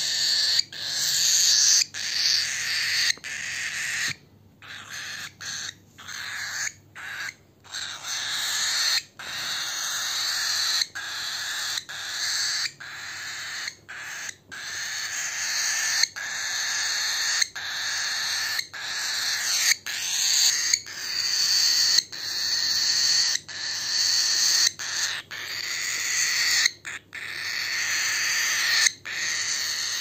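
Young cockatiel giving a raspy, hissing food-begging call over and over, about one call a second, each swelling in loudness and breaking off sharply.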